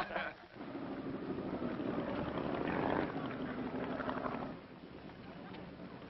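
A small motor launch running alongside a yacht, its engine hum mixed with water wash, swelling to a peak about three seconds in and dropping away about four and a half seconds in to a faint hiss.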